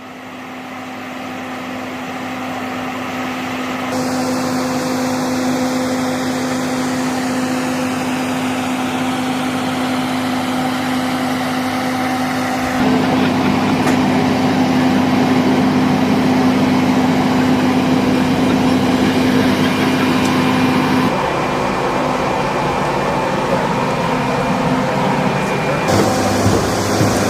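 KC-135 Stratotanker jet engines running: a steady drone with a strong low hum. The sound fades in at the start and shifts abruptly several times.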